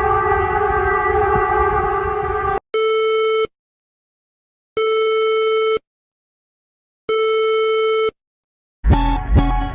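Emergency Alert System-style alarm tones. A sustained multi-pitched alert tone runs for about two and a half seconds and cuts off. Then come three identical buzzy beeps, each about a second long with a second of silence between them. Music with guitar starts near the end.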